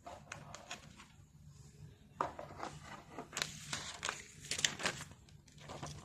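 Packaging being handled during a keyboard unboxing: irregular crinkling and scraping rustles, picking up about two seconds in and coming thickest near the end.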